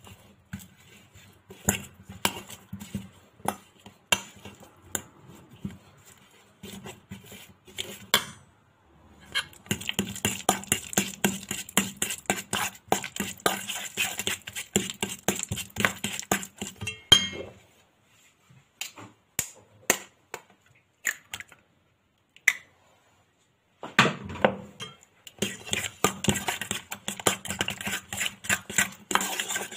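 A metal fork mashing banana in a stainless steel bowl, its tines clicking and scraping against the metal in fast runs of strokes, with a pause of scattered taps midway.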